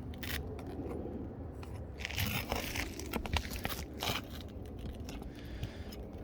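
Irregular crunching, scraping and crackling of asphalt roof shingles being worked on and under.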